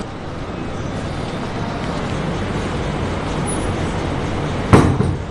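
Steady, even traffic-like background noise. About three-quarters of the way through comes a single loud bang of a door being shut.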